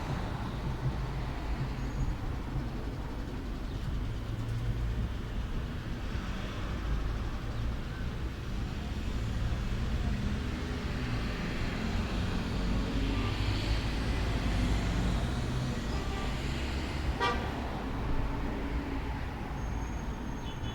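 Steady rumble of road traffic with vehicles passing by, and a single sharp click about three-quarters of the way through.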